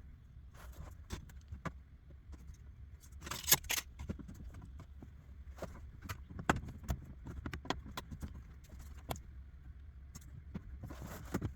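Scattered light clicks and knocks, with a brief louder rustling scrape about three and a half seconds in: tools and plastic bumper parts being handled during a plastic-welding repair.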